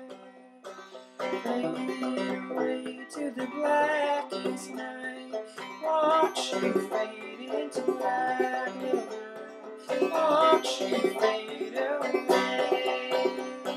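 Clawhammer banjo playing an old-time tune without singing, a steady stream of picked notes after a brief lull about a second in.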